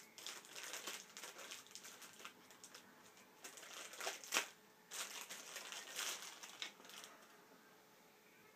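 Packaging crinkling and rustling as it is handled, in uneven spells with a few sharper crackles about four to six seconds in, dying away near the end.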